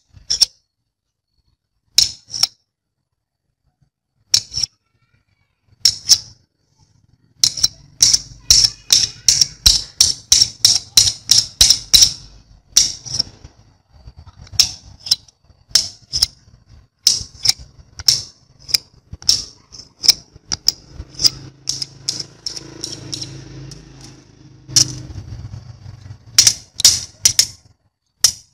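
Steel screwdriver shaft clicking against a ring magnet as it is put on and twisted off again and again to magnetize the screwdriver. There are a few sharp clicks at first, then a quick run of about three to four a second, and then about one to two a second.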